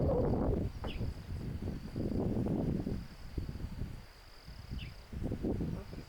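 A steady high-pitched insect drone, with swells of low rumbling noise coming and going three times. Two brief rising chirps are heard, about a second in and near the end.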